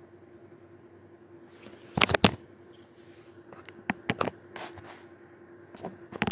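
A few short clicks and knocks, the loudest pair about two seconds in, over a faint steady hum.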